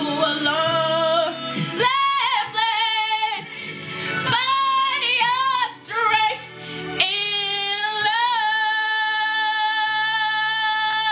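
A woman singing a pop ballad over backing music: short phrases, then from about seven seconds in one long held note with a brief waver near eight seconds.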